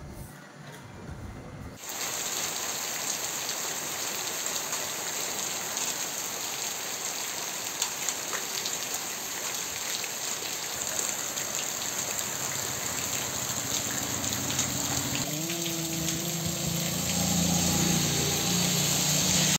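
Heavy rain pouring onto a street and its puddles, a steady hiss that starts suddenly about two seconds in. Near the end a car drives up the flooded road, its engine and tyres on the wet surface growing louder.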